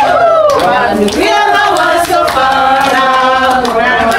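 A group of people singing together without instruments, men's and women's voices mixed, holding long notes.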